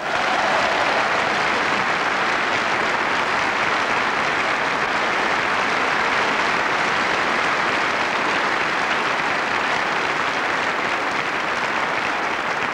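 Large hall audience applauding: dense, steady clapping that starts suddenly and keeps going without a break.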